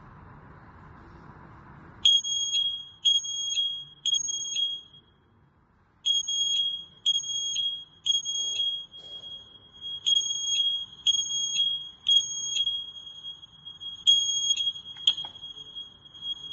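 Anka AJ-970S photoelectric smoke alarm sounding after sensing test smoke. Its shrill, high-pitched beeper sounds in groups of three beeps with a short pause between groups, the standard temporal-three fire alarm pattern. The beeping begins about two seconds in, after a faint hiss.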